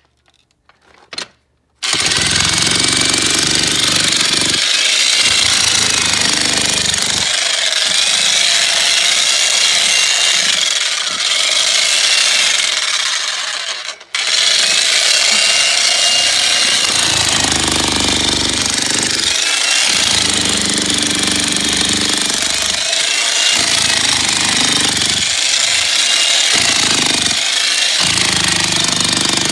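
Jackhammer hammering into rocky ground at the bottom of a tree-planting hole. It starts about two seconds in, stops briefly about halfway through, then starts again and runs on.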